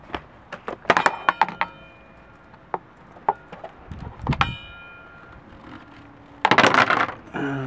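A few sharp knocks and taps, several of them ringing on briefly with a metallic tone, as the stainless steel helm wheel is bumped during handling. A short burst of loud rustling handling noise comes near the end.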